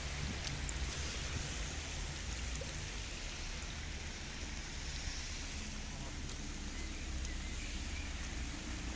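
Heavy rain falling, a steady hiss with scattered faint drop ticks over a steady low rumble.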